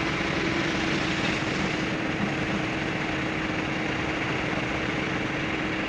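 An engine running steadily at idle, with one constant tone held throughout.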